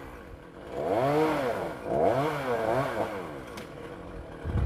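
Chainsaw engine revved in three short bursts, each rising and then falling in pitch, with quieter idling between them.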